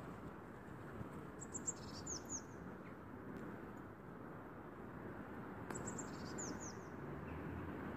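A small songbird singing two short phrases of high, quick downward-sweeping chirps, about a second and a half in and again near six seconds, over a steady background hum of the city.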